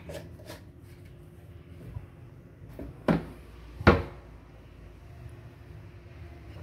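Stirring utensils knocking against a stainless steel pot of thick dough: a few light clicks near the start, then two sharp knocks a little under a second apart about three seconds in, the second louder, over a faint steady hum.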